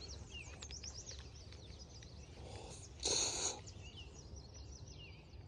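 Small birds chirping faintly outdoors in short, quick calls, with a brief rush of noise about three seconds in.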